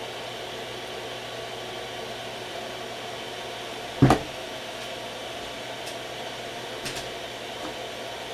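Steady fan-like hum and hiss of room noise with a few faint steady tones. There is a single brief thump about four seconds in and a few faint clicks later.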